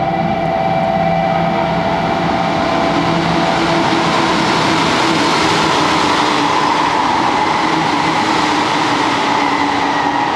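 JR Kyushu stainless electric train running through the station at speed without stopping: a loud, steady rush of wheels on rail with a few steady humming tones in it. It is loudest about halfway through as the cars pass and eases slightly near the end.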